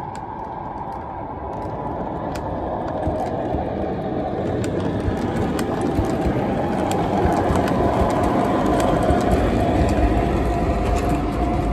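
MTH O-scale R62A subway model train running along its track, a steady rumble that grows louder, with scattered clicks. A steady whine comes in about halfway through.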